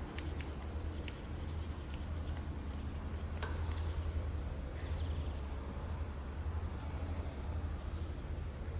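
A marker scribbling in quick, scratchy strokes on the metal tooling plate to lay down a witness line, over a steady low hum.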